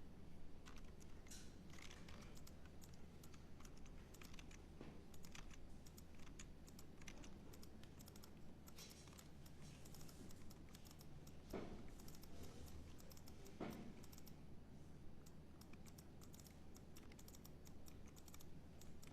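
Faint typing on a computer keyboard: an irregular run of light key clicks.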